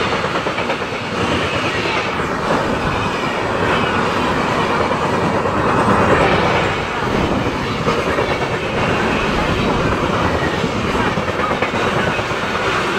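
Red-and-grey LHB passenger coaches of an Indian Railways express running through at speed: a steady, loud rush of steel wheels on the rails, thick with rapid clicking.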